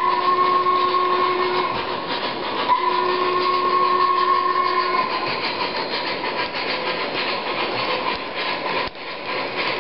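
MTH RailKing Norfolk & Western Y6b O-gauge locomotive's sound system blowing its steam whistle in two long blasts, over the continuous rhythmic chuffing and rumble of the train running on the track. The whistle stops about halfway through, and the running sound carries on.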